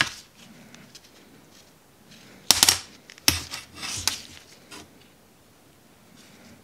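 Handling noise from gloved hands working a heavy battery cable and its crimp lug: a sharp click at the start, a louder clack with a brief scrape about two and a half seconds in, then another click and a short rustle.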